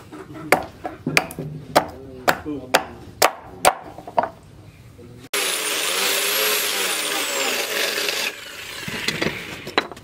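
A small hatchet chopping a red thnong-wood handle block: about eight sharp strikes over the first four seconds. A little after the halfway point an angle grinder with a sanding disc starts abruptly on the block, its high whine sagging in pitch. About three seconds later it drops to a quieter running sound that fades near the end.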